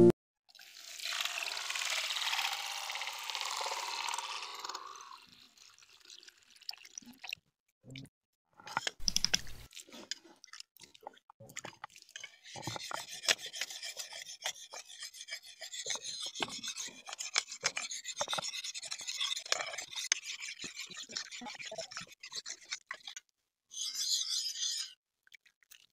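A steel knife blade scraped back and forth over a rock to sharpen it, giving a rapid, high rasping scrape. A few seconds of hiss come first, then scattered single scrapes before the steady strokes take over, with a short final burst near the end.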